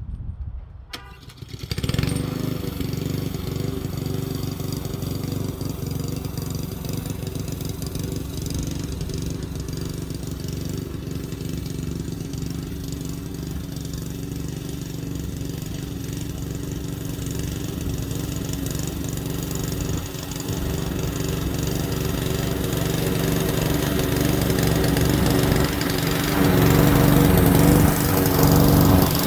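Lawn mower engine starting about two seconds in, then running steadily, growing louder near the end.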